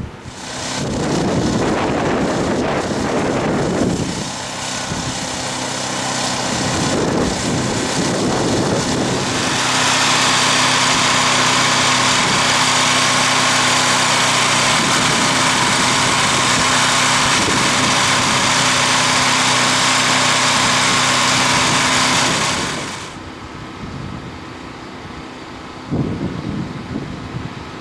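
Gusts of wind on the microphone, then a motor running steadily with a loud hiss joining about ten seconds in. Both stop abruptly about 23 seconds in, leaving quieter wind.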